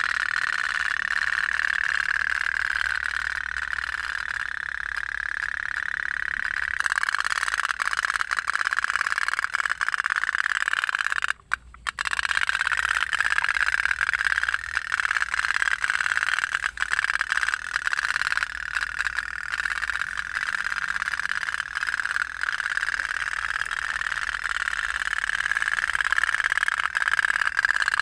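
Toy pop-pop (otok-otok) boat running, its candle-heated steam boiler and tin diaphragm giving a fast, steady putt-putt rattle. It cuts out sharply for a moment about eleven seconds in, then carries on.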